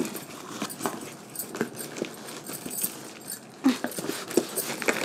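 Cardboard shipping box and its plastic wrapping being handled and opened by hand: irregular rustles, scrapes and small clicks, with a brief pitched sound about three and a half seconds in.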